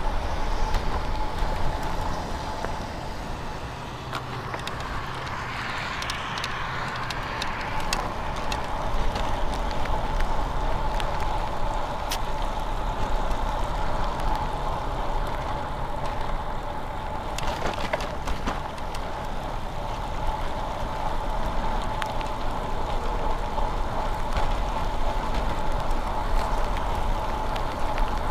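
Road bike riding on a wet road: a steady tyre hiss with low wind rumble on the microphone and a steady high hum beneath, swelling into a louder rush about five to seven seconds in.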